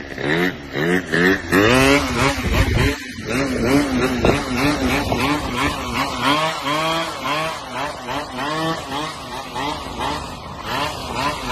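Sport scooter's small engine revving up and down over and over, rising and falling in pitch about every half second as the throttle is blipped to ride and hold a wheelie. There is a brief break in the sound about three seconds in.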